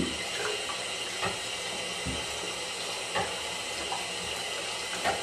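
Hot water running from a sink faucet in a steady stream over a glass jar that is being turned by hand, with a few faint knocks. The hot water heats the scored glass so it will crack apart along the score lines.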